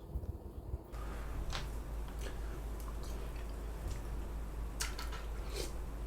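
Quiet eating sounds over a bowl of samgyetang: a few short clicks and wet mouth and spoon sounds, over a steady low hum.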